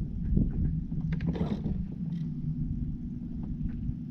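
Bow-mounted electric trolling motor humming steadily, its pitch stepping up about two seconds in, with a few light clicks early on.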